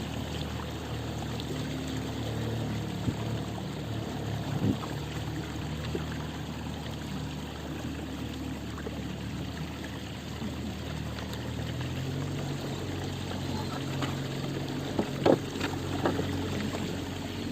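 An engine running steadily, its hum shifting slightly about two-thirds of the way through, over a wash of noise, with a few sharp knocks near the end.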